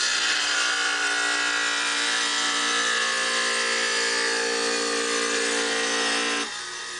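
Electric tile saw running and cutting a ceramic floor tile, a steady motor whine with blade hiss. It drops off sharply near the end.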